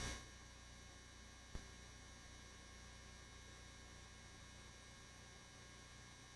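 Near silence: a faint steady electrical hum, with one small click about one and a half seconds in.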